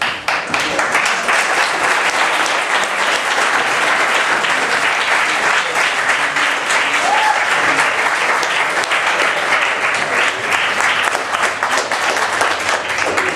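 Crowd applauding steadily. It starts abruptly, greeting the result of a kickboxing bout.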